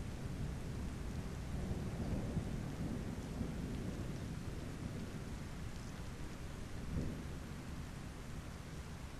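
Steady rain falling, with low rolling rumbles of distant thunder that swell about two seconds in and again around seven seconds.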